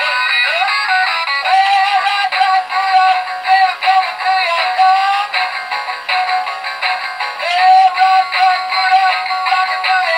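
Knock-off Rocking Santa animated toy playing a Christmas song with a singing voice through its small built-in speaker. The sound is thin and tinny, with no bass.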